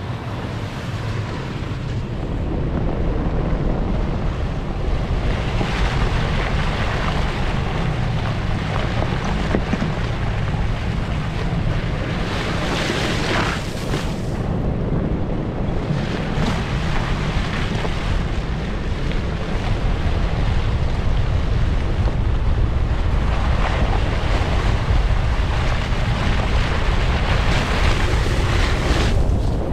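Toyota FJ Cruiser's 4.0-litre V6 and tyres running on a dirt trail: a steady low rumble with a rushing hiss over it that swells several times.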